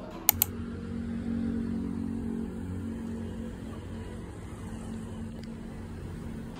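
City road traffic: a steady low engine hum from passing vehicles that swells about a second in. Two sharp clicks come just after the start.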